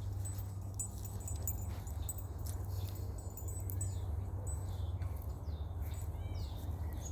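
Steady low rumble of wind buffeting the microphone, with scattered light clicks and a few short bird chirps about five and six seconds in.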